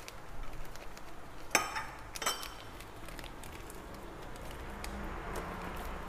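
A metal spoon clinks twice against a small ceramic bowl, about a second and a half in and again just after two seconds, with faint small taps around it.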